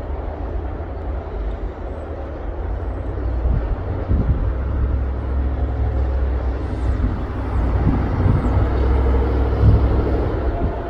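Deep, steady rumble of an Emirates Airbus A380's four jet engines, slowly growing louder, with a few brief low thumps.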